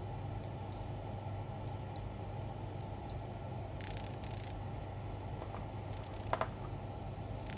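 Keys on a mechanical keyboard pressed and released three times, each stroke a pair of sharp, light clicks about a quarter second apart, the pairs about a second apart; a single louder, duller key knock follows about six seconds in.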